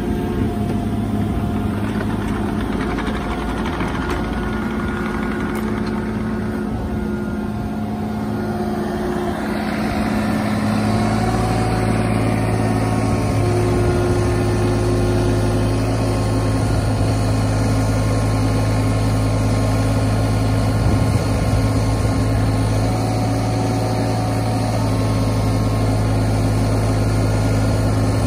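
Mini excavator's diesel engine running steadily while its hydraulics lift and carry a load of pavers in a band clamp; the engine gets louder about ten seconds in.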